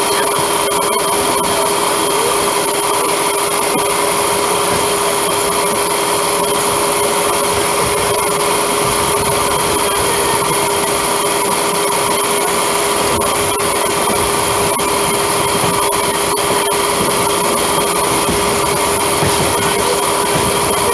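Running noise of an electric suburban local train heard from inside the coach: a steady rumble of wheels on rail with a steady motor whine on top, and scattered light clicks.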